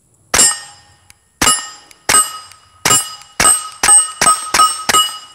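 Suppressed KelTec P17 .22 LR pistol firing about nine shots, each a sharp crack with a brief metallic ring. The first shots are about a second apart, then they come quicker, about three a second.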